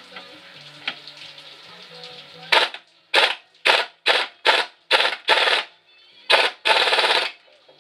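Pneumatic impact wrench hammering in about nine short trigger bursts, starting about two and a half seconds in, the last one the longest, as it loosens a clamp bolt on a tire changer's turntable.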